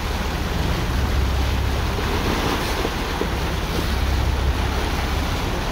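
Wind rushing over the microphone and sea water washing around a boat, a steady noise with a low rumble under it.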